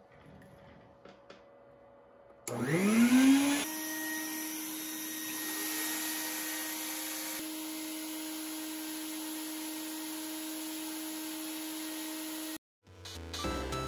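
Bucket-top shop vacuum switched on about two and a half seconds in: the motor whines up in pitch over about a second, then runs steadily at one pitch. The sound cuts off abruptly near the end, and music follows.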